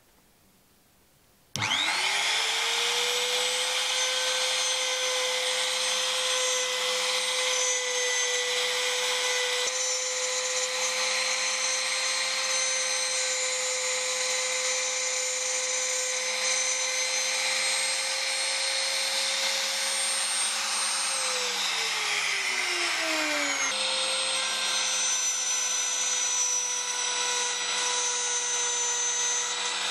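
Trim router starting up with a quick rising whine, then running at a steady high speed while cutting a groove in a wooden block. About 21 seconds in its pitch sinks as it slows down; from about 24 seconds it is running at full speed again.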